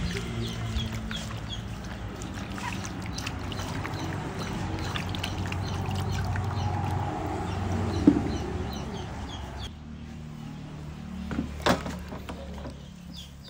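Water sloshing and splashing in a plastic basin as hands rub and scrub a luffa gourd, then a carrot, under the water, with two sharp knocks along the way. Birds chirp in the background over a low steady hum.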